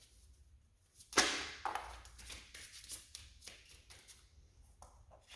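Deck of reading cards being shuffled and handled: a sharp slap about a second in, then a quick run of flicks and rustles, with a few light taps near the end.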